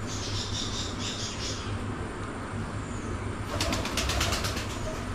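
Birds chirping in a quick repeated series, then about three and a half seconds in a second-long burst of rapid fluttering.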